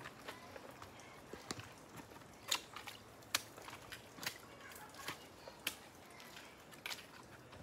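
Hikers' footsteps on a steep rocky trail: boots stepping and scuffing on rock and dirt, heard as a scatter of irregular crunches and clicks over a faint background.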